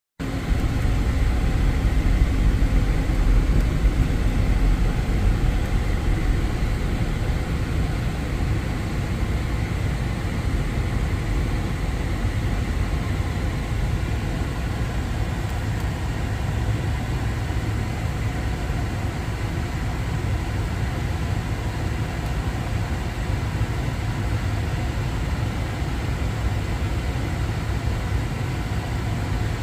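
Steady low rumble of idling vehicle or road-equipment engines, somewhat louder over the first several seconds and then holding level.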